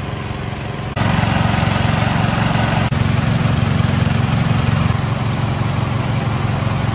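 An engine running steadily with a low, even hum; it steps up louder about a second in and holds there.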